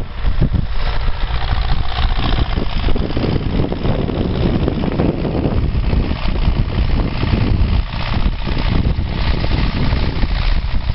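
Massey Ferguson 3120 tractor's diesel engine running steadily, with a heavy low rumble.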